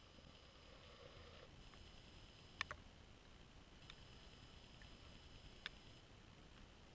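Near silence: faint steady hiss, broken by two sharp clicks, one about two and a half seconds in and one nearer the end.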